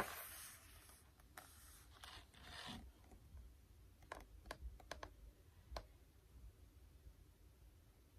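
Near silence broken by faint handling of a hardcover picture book held up close: soft paper rustles in the first three seconds, then a few light clicks.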